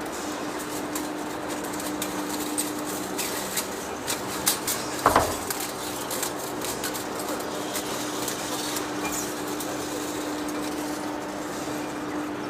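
A machine's steady hum with a constant tone, with scattered metallic clanks and knocks over it, the loudest about five seconds in.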